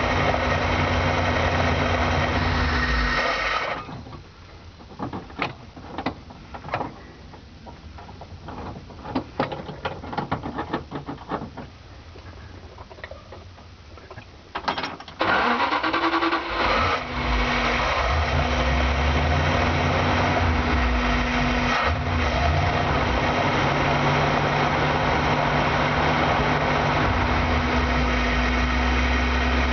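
A van's carbureted engine, warming up after being flooded, runs and then stops about four seconds in; during the quiet stretch there are scattered small clicks. About fifteen seconds in, the starter cranks with a rising whine, the engine catches and runs on with an uneven, wavering idle.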